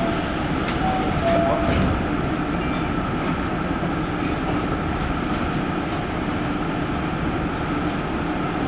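Hankyu electric train running along the track: a steady rumble of wheels on rail with a few light clicks.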